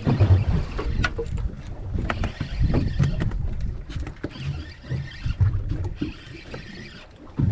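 Water slapping and lapping against the hull of a small boat at sea, in irregular low thuds and surges.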